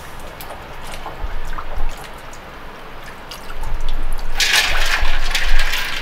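Water dripping and splashing in a shallow pan as a large fish fillet is washed in warm water to take away its fishy smell. It starts with light drips, then splashes loudly from about four and a half seconds in as the fish is plunged and rubbed in the water.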